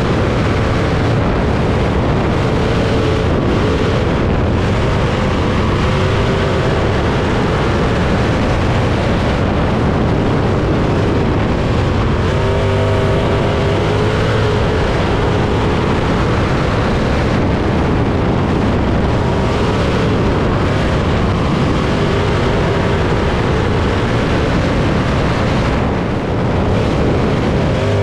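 Sprint car's 305 cubic-inch V8 engine running hard at racing speed on a dirt oval, heard from the cockpit: loud and continuous, its pitch wavering as the throttle is worked.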